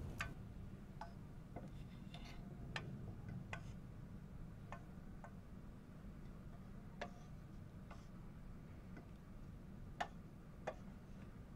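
Faint, scattered clinks of spoons and knives against metal plates as people eat, irregularly spaced, some ringing briefly, over a low steady hum.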